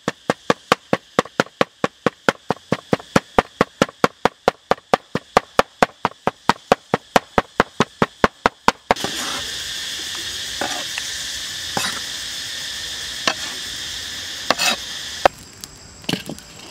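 Cleaver chopping raw pork into mince on a wooden cutting board, quick even strokes about four a second, stopping about nine seconds in. After that, a steady high hiss with a few sharp clicks.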